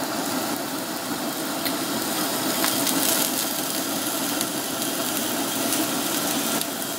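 Onion rings sizzling in hot sunflower oil in a frying pan, a steady hiss and crackle, with a few light ticks of the tongs as the rings go in.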